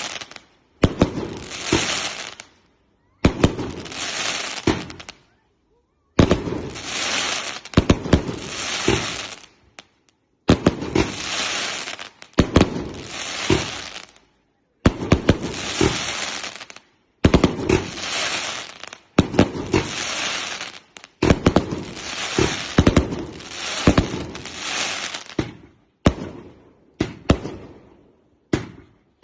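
Fireworks going off in a series of sharp bangs, each followed by a second or two of dense crackling, about every two seconds with short silent gaps between. Near the end the bursts are shorter and more spaced.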